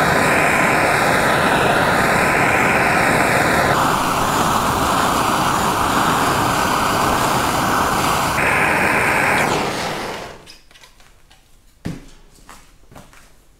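Handheld gas torch burning with a steady rushing hiss as its flame heats the carburetor bowl around a seized, broken-off brass jet to loosen it. The hiss changes tone twice as the flame is moved into the bore, cuts off about ten seconds in, and is followed by small clicks and a single knock.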